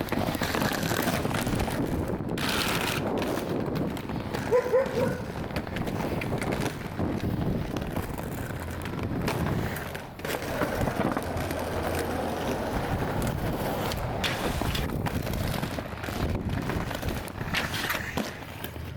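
Skateboard wheels rolling over street pavement, a steady grinding rumble with a few brief clacks along the way.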